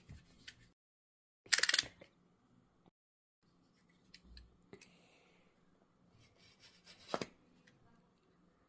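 Handling noises from unboxing a phone: rubbing and scraping of cardboard and plastic packaging, with a loud scrape about one and a half seconds in and a few sharp clicks and taps later. It is broken by two short dead-silent gaps.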